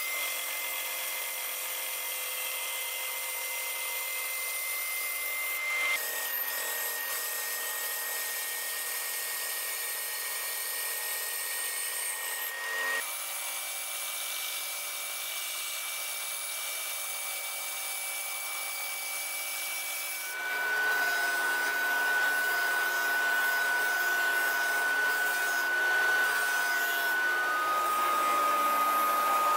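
A benchtop band saw running steadily and cutting plywood, its tone jumping slightly in pitch twice. About two-thirds of the way through, a disc sander takes over, a little louder, with a wooden piece pressed against the spinning abrasive disc.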